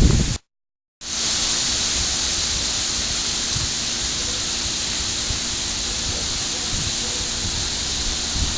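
Strong wind blowing as a steady, even hiss. It begins with a little low buffeting, then the sound cuts out completely for about half a second before the hiss returns.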